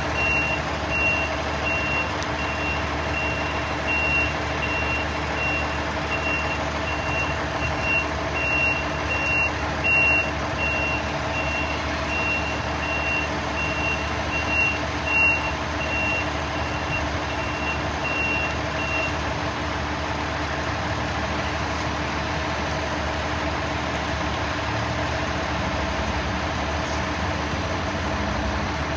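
A heavy vehicle's backup alarm beeping at an even pace, stopping about two-thirds of the way through, over steady heavy rain and the hum of idling truck engines.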